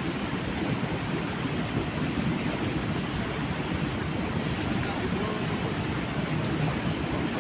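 Steady rush of water flowing along a ditch, an even noise with no breaks.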